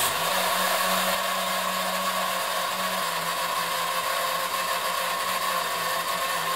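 1950s Märklin motorised model-railway turntable running, its small electric motor and gearing turning the bridge with a steady whirr and a constant high whine. About three seconds in, the low hum drops slightly in pitch.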